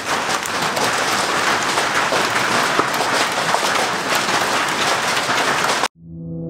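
Large hailstones and heavy rain pelting down, a dense clatter of many hard impacts. It cuts off abruptly near the end and music begins.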